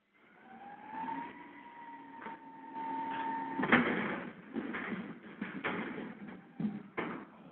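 Garbage truck picking up trash bins: a whine rises and then holds for a couple of seconds, then a run of loud clanks and bangs, the loudest about half way in, as the bins are handled.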